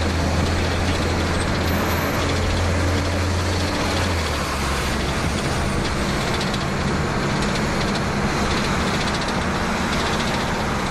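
A fire engine's diesel engine running, heard from inside the cab over road and traffic noise. A strong low steady drone drops away about four seconds in, leaving the lighter rumble and road noise.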